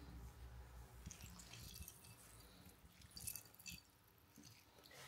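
Faint squelch of a lemon half pressed in a hand-held metal lemon squeezer, juice dripping into a bowl, with a couple of small clicks from the squeezer about three and a half seconds in.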